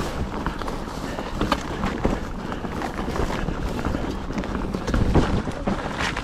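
Mountain bike riding over a dirt forest singletrack: steady tyre and rolling rumble with frequent knocks and rattles as the bike goes over roots and stones, heaviest about five seconds in.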